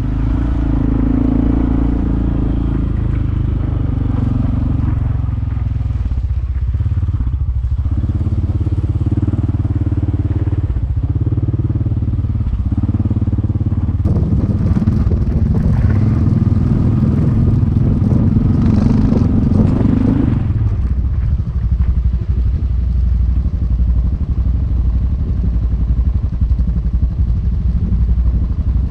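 Off-road vehicle engine running while driving along a trail, louder and rougher for about six seconds midway through, then settling back to a steady run.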